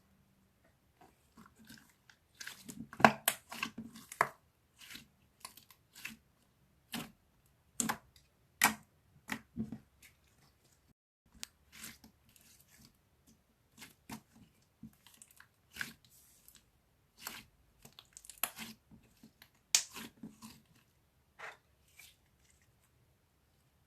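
Irregular close-up clicks, taps and short crunchy noises, sometimes in quick clusters with pauses between.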